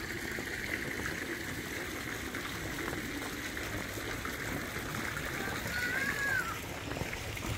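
Small garden fountain jets with water trickling steadily, with people's voices in the background.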